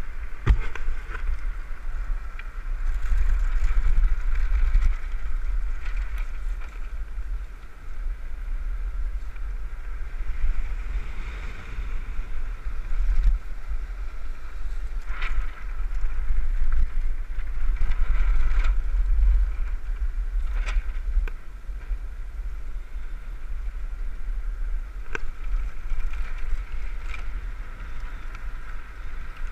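Wind buffeting the microphone of a camera mounted on a land yacht sailing fast over hard beach sand: a heavy rumble that swells and eases, over a steady rushing hiss from the craft's run. A few sharp clicks stand out, about a second in, around the middle and late on.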